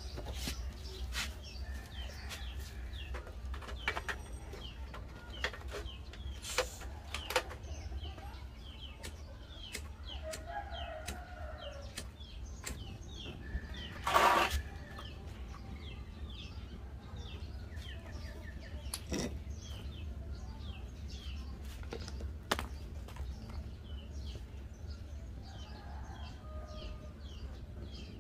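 Birds chirping in short falling notes several times a second throughout, with scattered sharp clicks and knocks from handling a metal portable gas stove and tools. A brief loud burst comes about halfway through.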